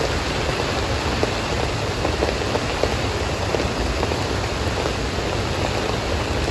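Steady pouring rain: an even hiss with a few scattered faint ticks.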